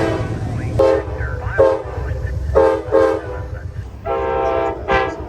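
Locomotive air horn sounding a string of short toots, with one longer blast about four seconds in, over a steady low rumble from the train.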